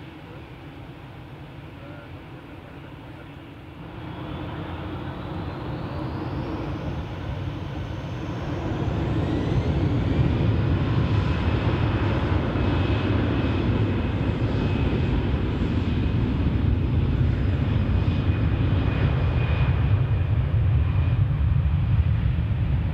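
Airbus A320's jet engines spooling up for takeoff: a whine rising in pitch over several seconds, then loud, steady engine noise with a high whine held.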